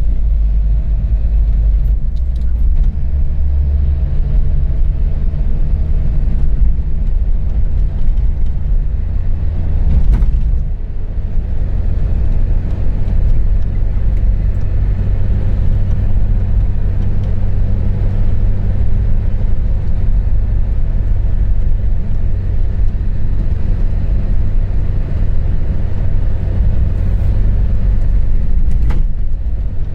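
A motor vehicle running on the road: a steady, loud low engine and road rumble, with a brief knock about ten seconds in and another near the end.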